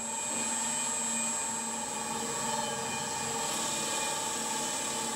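Electric motor of a workshop bench machine running steadily: a low hum under a thin, high whine.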